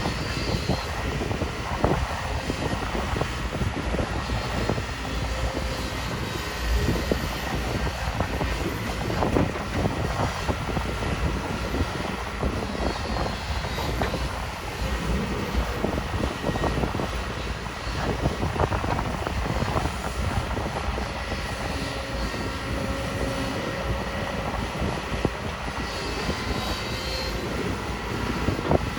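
Kobelco SK250 excavator's diesel engine running steadily under load while digging and loading soil, with scattered knocks and clunks from the work.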